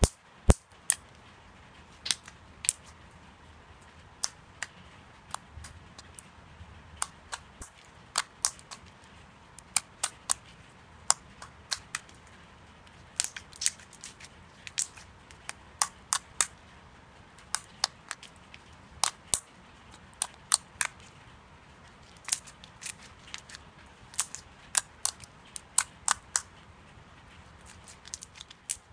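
Slime being handled and squeezed, giving irregular sharp clicking pops, sometimes in quick pairs, one to three a second.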